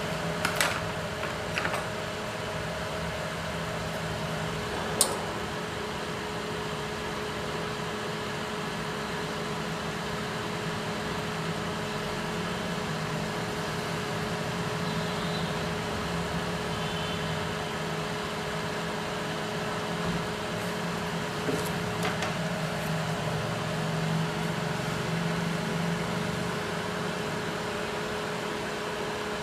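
Cooling fan of a Universal UPA6500DP power amplifier running steadily, a continuous whirr with a faint hum. A few sharp clicks break in, the loudest about five seconds in.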